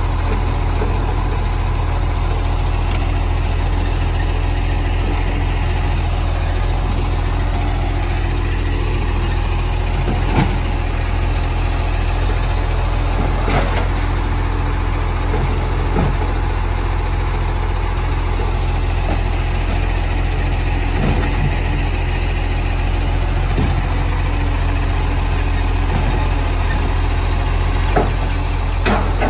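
Side-loader garbage truck engine running steadily at idle. A few sharp clanks and knocks sound now and then from the automated lifting arm, which tips a wheelie bin into the hopper near the end.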